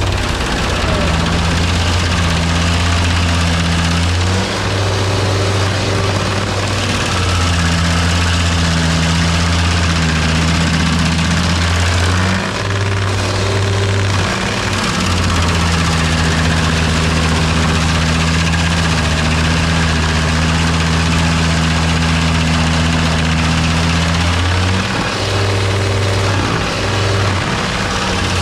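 Large engine running steadily, its speed rising briefly three times and settling back each time.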